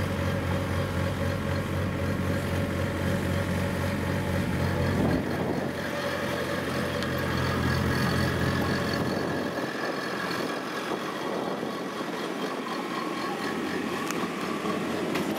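Rice combine harvester's engine running steadily while the machine creeps slowly up onto a narrow bridge. Its deep low hum fades about two-thirds of the way through, leaving the higher engine tones.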